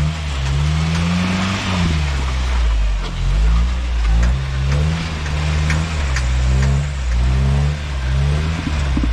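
Toyota rock crawler's engine revving up and down over and over at low engine speed, with scattered clicks and knocks over it.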